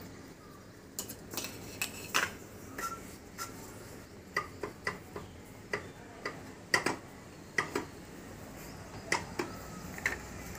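Irregular light clicks and clinks, one or two a second, some with a short ring: submersible pump impellers and bowls being slid onto the pump shaft and seated as the stage stack is assembled.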